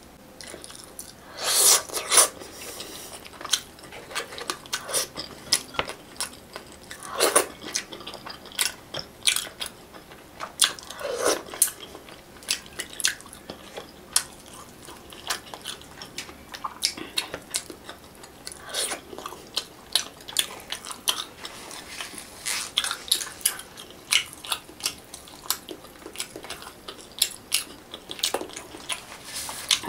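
Close-up eating sounds: chewing and crunching on fried fish eaten by hand, with many short sharp clicks from the mouth and food throughout.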